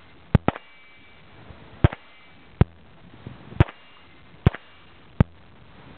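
M4 carbine (5.56 mm) fired in single shots at steel silhouette targets, about seven sharp cracks roughly a second apart, two close together near the start. After a few of them comes a short metallic ring, the plink of a round striking steel.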